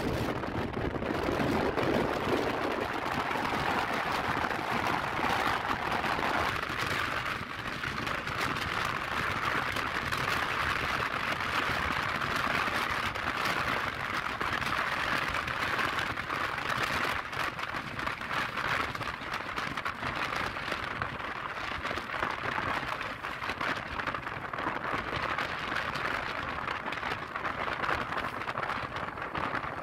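Steady rushing wind and road noise on the camera microphone of a Yamaha Lexi scooter riding at speed along a highway.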